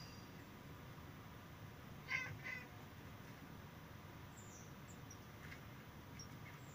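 Two short, harsh calls about two seconds in, then faint high chirps of small birds every second or so, from a bird video playing on a computer.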